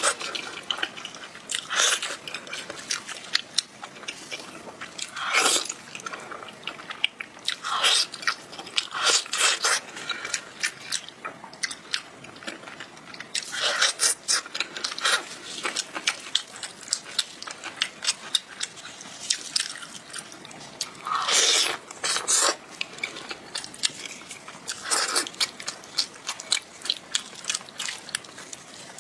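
Close-up biting and chewing of red-braised pig's foot: many short clicks and smacks of the mouth on the meat and skin, in irregular clusters with brief pauses between them.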